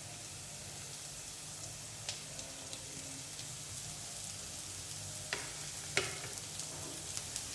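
Chopped onion, green chili and beans sizzling in hot oil in a pan as they are sautéed and stirred, with a few sharp taps of the spatula on the pan about two, five and six seconds in.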